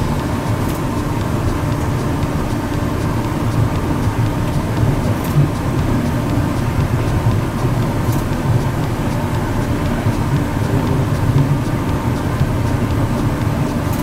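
Rubber-tyred automated guideway train of the Kanazawa Seaside Line running steadily along its concrete guideway, heard from inside the front car as a continuous low rumble of tyres and motors. A few faint clicks come through it.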